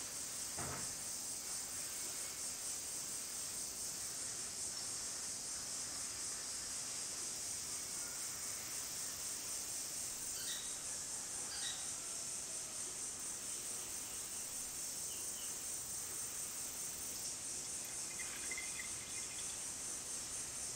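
Crickets chirping in a steady high chorus, with a soft knock just under a second in and a few faint short chirps about halfway through and near the end.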